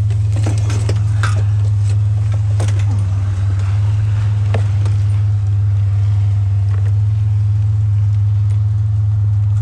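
A vehicle engine idling with a steady low hum, under scattered light clicks and knocks of items being handled.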